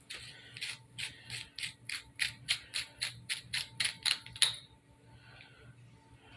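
A quick, even run of small ratchet-like clicks, about four to five a second, stopping after some four seconds, as an LED flashlight is handled while AAA batteries are loaded into it.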